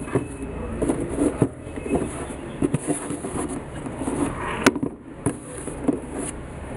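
Handling noise: irregular rustling and small clicks as knit sneakers and their tissue paper are moved about in cardboard shoe boxes, with one sharp click about two-thirds of the way in.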